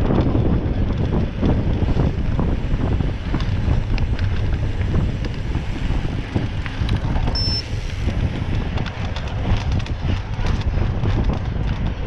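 Wind buffeting the microphone as a heavy, steady rumble, with scattered clicks and knocks and one short high beep about seven and a half seconds in.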